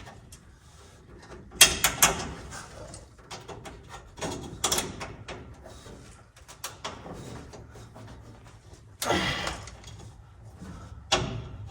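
Metal clamps and hand tools being handled: sharp clinks and knocks, the loudest a pair about two seconds in, another near the middle, and a longer scraping rattle near the end as a cushioned line clamp is fitted.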